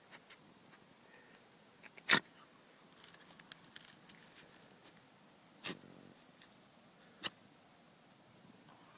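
Jack Russell terrier sneezing in three short, sharp bursts: the loudest about two seconds in, then two more about three seconds and five seconds later, with faint rustling and ticking in between.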